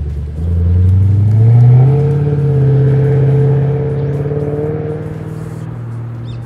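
Toyota Celsior (30 series) 4.3-litre V8 exhaust through a loop muffler and straight-through mid-pipe, pulling away from idle. About half a second in it jumps in loudness and rises in pitch as the car accelerates, holds a steady note, then fades as the car drives off.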